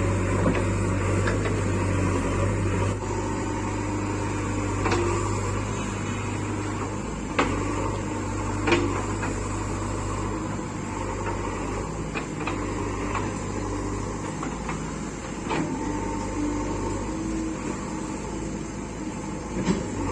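JCB 3DX backhoe loader's diesel engine running steadily under work, with a few sharp knocks from the machine scattered through it.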